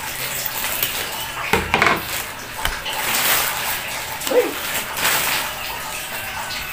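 Plastic courier pouch and clear plastic wrapping crinkling and rustling as a parcel is opened and its contents pulled out, with a few sharper crackles.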